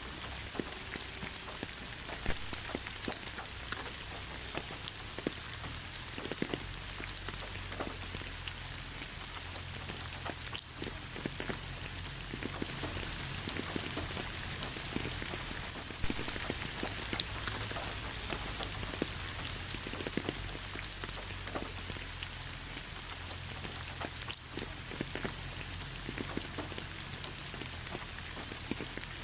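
Steady rain falling, an even hiss with many individual drops pattering and ticking on nearby surfaces.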